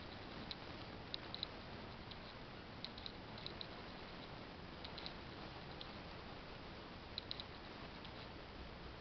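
Quiet room tone: a steady faint hiss with small, sharp clicks every second or so, often in twos or threes.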